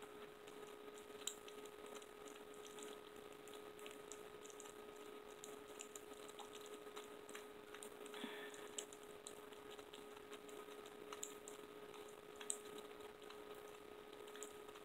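Faint scattered wet clicks of a baby squirrel suckling Pedialyte from a syringe, over a steady faint hum.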